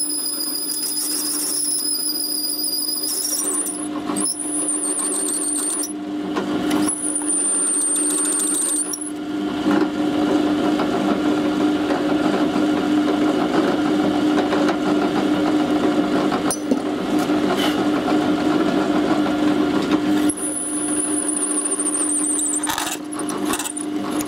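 Electric drill running with a small twist bit, drilling out a broken-off brass screw stuck in a kWh meter's brass terminal. A steady motor hum runs throughout, with a high squeal from the bit cutting the brass that comes and goes, strongest in the first nine seconds and again near the end.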